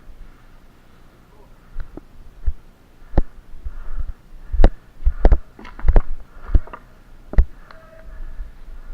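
Dull thumps and knocks, a few scattered at first and then about one every two-thirds of a second, from an airsoft player's footsteps jolting a body-worn action camera.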